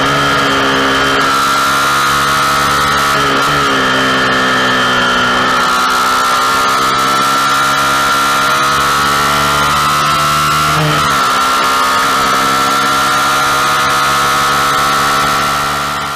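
Suzuki Gixxer SF 150's single-cylinder engine running hard at high revs at speed, with wind rush over it. The engine note dips and picks up again twice, about three and a half and eleven seconds in, the second time as the bike shifts up into fifth. The sound fades out near the end.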